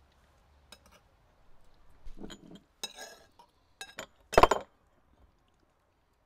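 Spoons and forks clinking against plates and dishes at a meal: a scatter of short clinks and knocks, the loudest cluster about four and a half seconds in.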